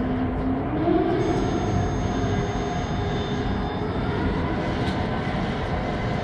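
Steady machinery hum and whir, with a short rising whine about a second in and thin high-pitched tones for a couple of seconds after.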